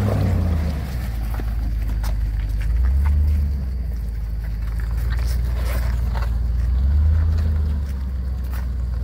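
Land Rover Discovery 2 crawling slowly over rocks, its engine a low steady rumble that swells briefly twice. Light scattered clicks of stones or footsteps.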